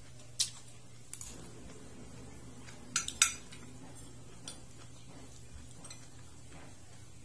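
Metal spoon and fork clinking and scraping against a plate: several sharp clinks, the loudest two close together about three seconds in, over a low steady hum.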